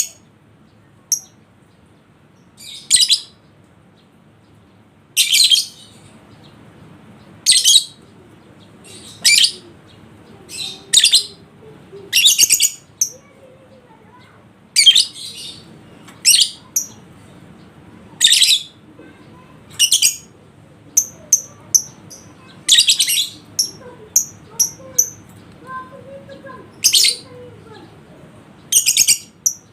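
Lovebird giving short, shrill, high-pitched calls, one every second or two, with softer quick chirps between them now and then.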